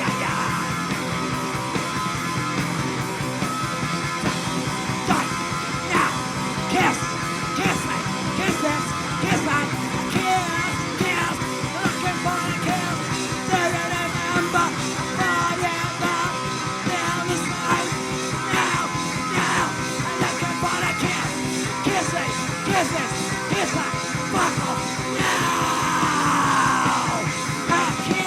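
Live punk rock band playing loudly: electric guitar and drums in an instrumental stretch with no singing. Near the end a guitar slides down in pitch.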